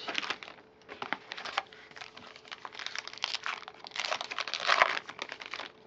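A baseball card pack's wrapper being torn open and crinkled by hand: a dense, irregular crackle that is loudest shortly before the end.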